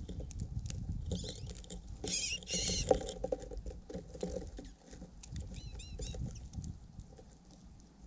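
Small birds pecking seed on a snow-covered platform feeder: many light, quick taps over a low rumble. A loud high burst of chirping comes about two seconds in, and a few short chirps about six seconds in.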